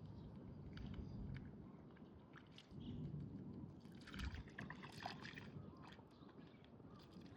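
Light splashing and trickling water in short bursts, loudest about four to five seconds in, over a steady low outdoor rumble.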